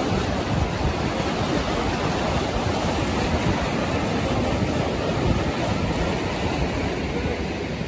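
Flash-flood water rushing in a fast, churning torrent past a footbridge: a loud, steady rush of water.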